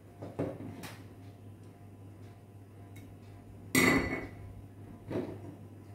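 Tableware knocking during a meal: a few soft knocks and one loud, sharp clink of glass that rings briefly, about four seconds in, as a glass serving bowl is handled on the table.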